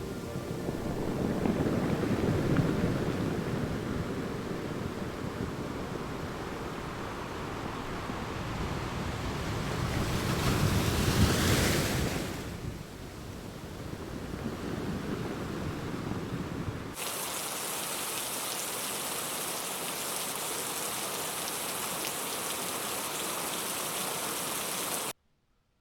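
Heavy rain with low rolling thunder that swells twice. About two-thirds of the way through it changes suddenly to steady hissing rain, which cuts off just before the end.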